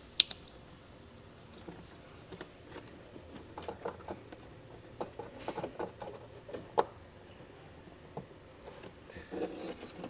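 Plastic wiring-harness connector snapping onto the factory taillight plug with one sharp click just after the start, then scattered light clicks and rustling as the wiring is handled and pushed up into the plastic trim cavity.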